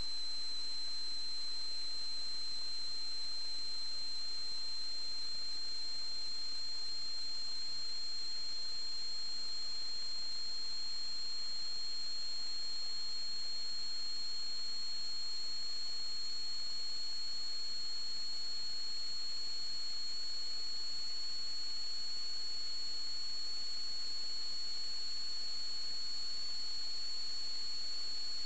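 Steady high-pitched electrical whine over a constant hiss. The whine holds one tone with a fainter, higher one above it, and creeps very slightly up in pitch.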